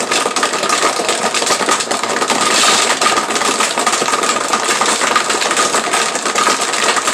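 Countertop blender running at a middle speed setting, a steady motor whine under the grinding and rattle of ice cubes being crushed in a berry smoothie. The knocking of unbroken ice shows the smoothie is not yet fully blended.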